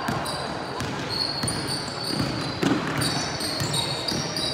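Basketball bouncing on a hardwood court as a player dribbles, with short high squeaks of sneakers on the floor in a large echoing sports hall.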